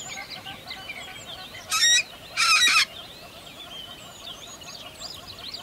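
A chorus of many small birds chirping and twittering, with two loud, harsh bird calls close together about two seconds in, the second longer than the first.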